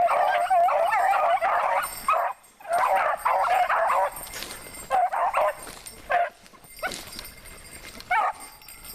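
A pack of rabbit hounds baying and yelping in full cry on a rabbit's trail. The calls come thick and overlapping for the first four seconds, then thin out to scattered single yelps and grow quieter.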